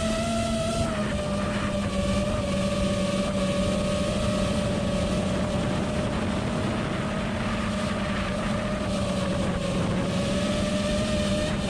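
Onboard audio of a 5-inch FPV racing quadcopter in flight: its 2008-size 1950 KV brushless motors, run on 6S, and the propellers whine at a fairly steady pitch, with a slight dip and rise of pitch about ten seconds in. Wind rushes over the camera's microphone.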